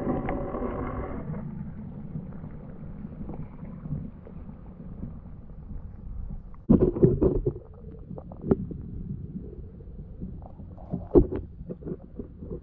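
Muffled low rumble of river water heard from a camera held under the surface, with sharp knocks and clunks from the camera housing, a cluster about seven seconds in and a single loud one near the end.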